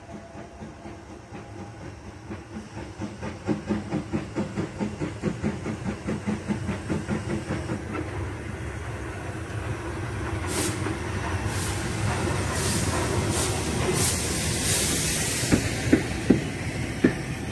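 Small steam tank locomotive pulling away and passing close: a steady rhythmic chuff of exhaust beats, then loud hissing exhaust strokes about a second apart as it draws level, and a few sharp clicks of wheels over rail joints near the end.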